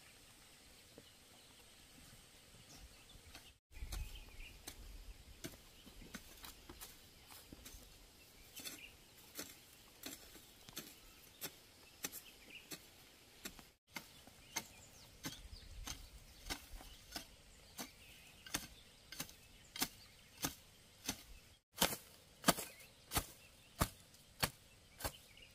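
A hoe chopping into weedy soil: a steady run of short thuds, about one and a half to two a second, sharper and louder in the last few seconds. The first few seconds hold only faint outdoor background.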